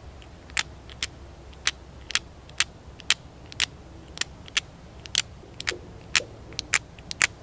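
A hand-held stone scraping the barbs of a bone harpoon point in short, sharp strokes, about two a second, as the bone is shaped by hand.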